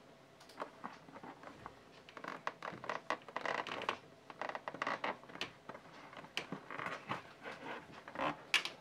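Hand work on leather: an uneven run of short scratching and rasping strokes mixed with small clicks.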